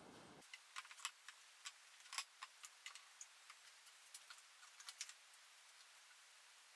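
Near silence with faint, irregular clicks, a few each second.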